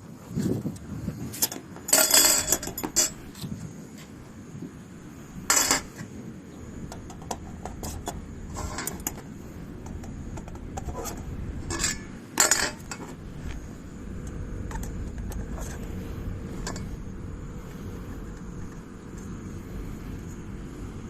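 Metal camping gear being handled, clinking and clattering like pots and utensils. The loudest clatters come about two seconds in, near six seconds and near twelve seconds, with lighter clinks between.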